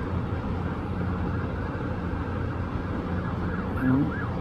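Steady low rumble of city traffic. About three seconds in, a faint emergency siren comes in, wavering up and down in pitch.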